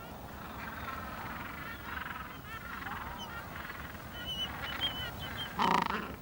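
Gentoo penguins calling in a colony: many overlapping honking calls, with one much louder, close call breaking in near the end.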